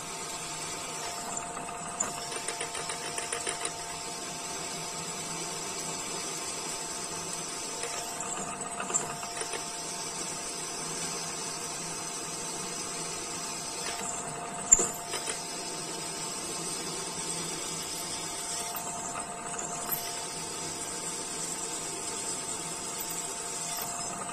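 PM-200 milling machine's 3 HP motor and spindle running with a steady whine while a twist drill cuts into a steel bar under hand feed. A few sharp clicks sound now and then, the loudest about two-thirds of the way through.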